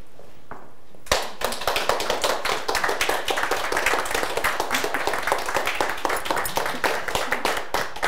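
Small audience applauding, starting suddenly about a second in.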